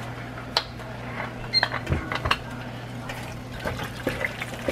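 A wooden spoon stirring chicken stock into a thick, creamy chicken pot pie filling in a nonstick pan, giving wet stirring sounds with scattered light clicks and knocks of the spoon against the pan.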